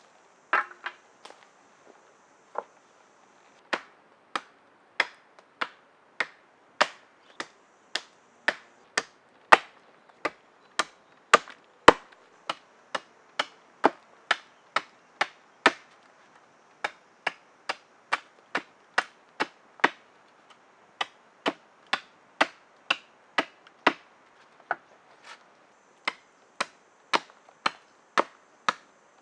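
Steady rhythmic chopping: sharp, dry strikes on wood, about one and a half a second, with a few short pauses.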